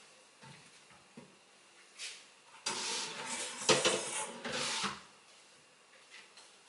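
Dishes and bowls clattering and scraping in a kitchen cabinet as a stainless steel mixing bowl is taken out, after a few soft knocks. The clatter lasts about two seconds in the middle.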